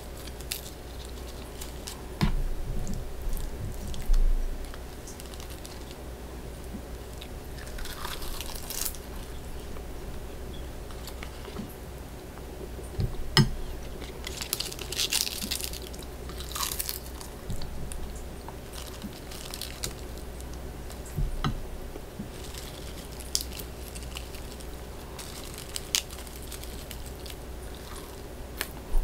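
Close-up food and kitchen handling sounds: scattered light clicks and knocks with a few brief bursts of rustling or crunching, over a steady low hum.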